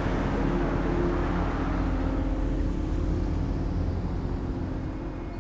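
A motor vehicle engine running, a steady low hum that eases off slightly near the end.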